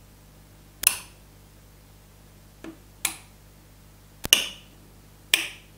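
Plastic two-way light switches clicking as they are flipped back and forth. There is a sharp click roughly every second, one of them a quick double click.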